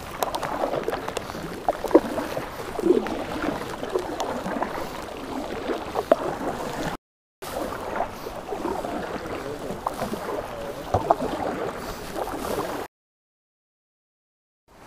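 Kayak paddle strokes splashing and dripping in the water, with light rain falling on the lake and the boat. The sound drops out briefly about seven seconds in and stops about thirteen seconds in.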